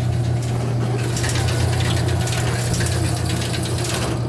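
Royal GIII soda machine humming steadily and low just after being plugged in. From about a second in, rustling and clattering handling noise joins it.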